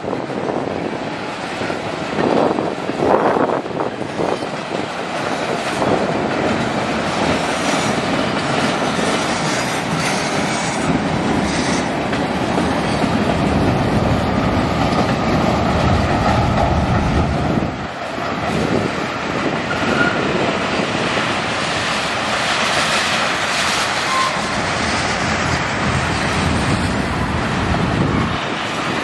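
Freight train's tank cars rolling past on steel wheels: a steady, loud noise of wheels on rail with occasional knocks from the wheels.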